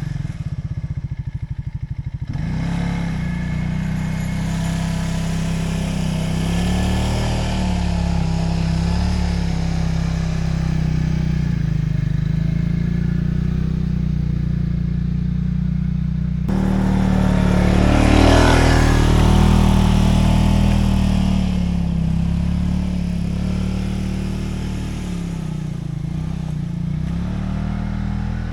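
Engine of a farm machine running steadily under working load, with an abrupt change in the sound about halfway through and a brief louder swell soon after.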